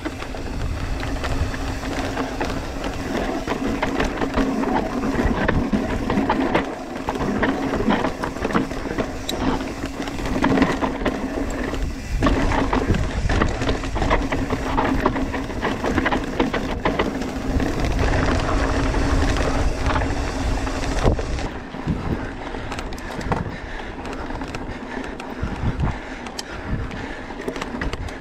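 Mountain bike riding down a technical dirt descent: tyres rolling and crunching over loose stones, the bike rattling, and wind rumbling on the microphone, with a steady hum through most of it. The rumble and hum drop away about 21 seconds in, leaving scattered knocks and rattles.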